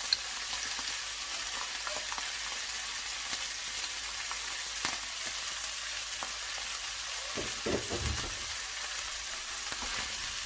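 Bracken fern and green onion sizzling in a frying pan as they are stir-fried, a steady hiss with small clicks and scrapes of the stirring utensil and a short low knock about three-quarters through.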